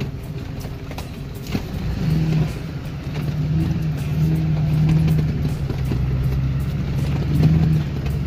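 Pickup truck's engine and cab rumble heard from inside while driving slowly over a rough dirt track, the engine note swelling and easing a few times, with occasional knocks.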